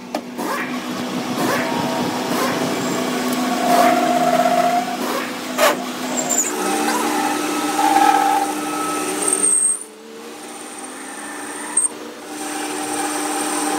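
Metal lathe running while a cutting tool turns a steel workpiece, peeling off long curled chips: a steady machine hum with a cutting hiss. A sharp click comes a little before the middle, and the sound drops away for about two seconds near the end before picking up again.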